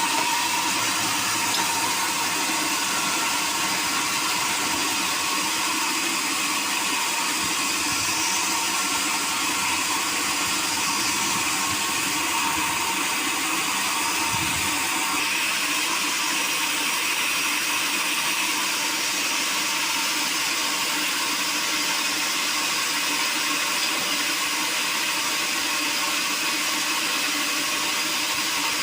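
Sawmill machinery running steadily: an even, unbroken rush of high machine noise with a few steady tones in it.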